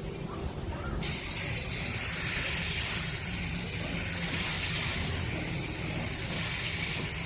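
A sprayer nozzle hissing steadily, switched on suddenly about a second in, over a constant low machine hum.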